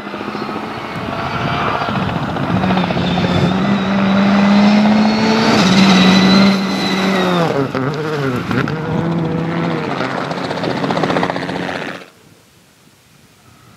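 Citroën C3 Rally2 rally car's turbocharged 1.6-litre four-cylinder engine at high revs on a gravel stage, its note building as the car nears. About halfway through, the revs dip and pick up again several times. The sound cuts off suddenly near the end.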